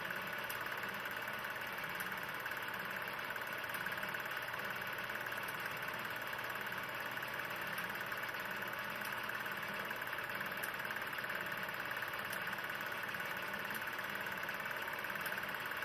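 16 mm film projector running steadily, an even mechanical whir with a fast fluttering rattle and no music or voices.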